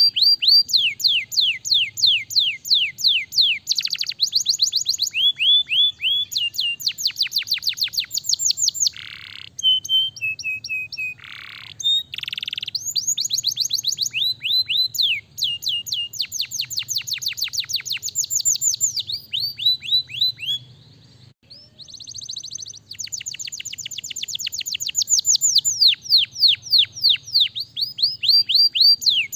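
Domestic canary singing a long, fast song of rolling trills: runs of rapidly repeated downward-sweeping notes, each run giving way to another of different pitch and speed, with a few brief pauses, the longest about two-thirds of the way through.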